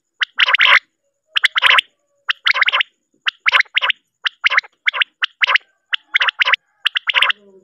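Quail (batair) calls from a hunting call recording: a short rasping call repeated about once a second, eight times.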